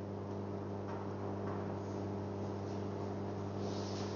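Steady low electrical hum, with a few faint light ticks.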